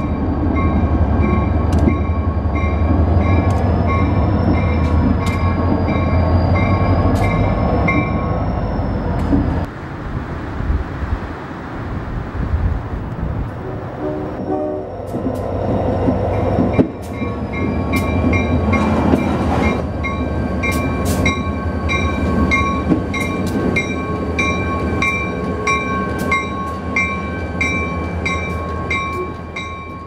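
Diesel switching locomotive running with its bell ringing at about two strokes a second over the low rumble of the engine. The bell stops at a break about ten seconds in and starts again about seven seconds later.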